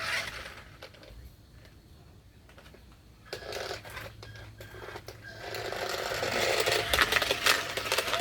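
Remote-control stunt toy's small electric motors running with a dense rattle and clatter as it drives, starting about three seconds in and getting louder past the halfway point.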